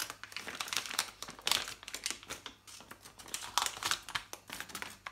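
Metallised anti-static bag crinkling in the hands in irregular crackles as a circuit board is slid out of it.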